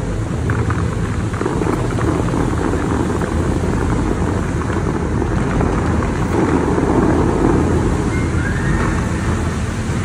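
Steady rumbling wind buffeting the microphone over the rushing hiss of the Dubai Fountain's water jets. No music is heard.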